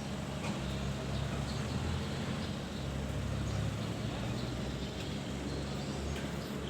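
Engine of road-works machinery running steadily with a low drone.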